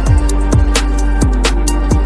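Electronic background music with a steady beat: a deep kick drum about twice a second over a held bass note.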